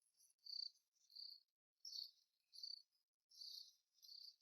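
Faint cricket chirping: short high chirps repeating roughly every half second.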